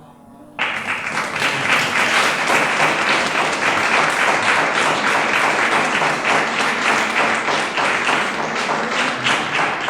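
Audience applauding. The applause breaks out suddenly about half a second in and keeps going at full strength.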